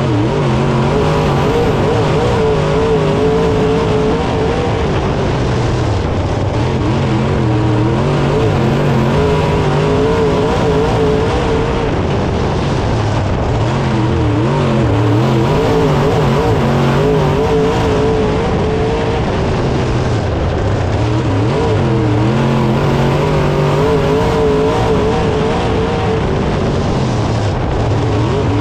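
Dirt late model race car's V8 engine at racing speed, heard from inside the car. Its pitch rises and falls over and over, every few seconds, as it comes off and back on the throttle around the dirt oval.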